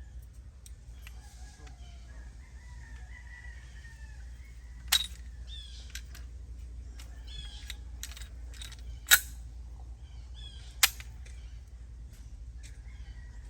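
Three sharp gunshots a few seconds apart, about five, nine and eleven seconds in, the middle one the loudest, with birds calling faintly between them.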